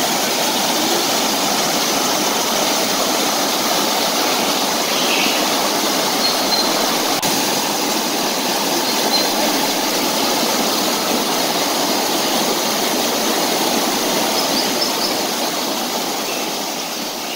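Shallow rocky river rushing over boulders and spilling over a low stone weir: a steady, loud rush of water that fades out near the end.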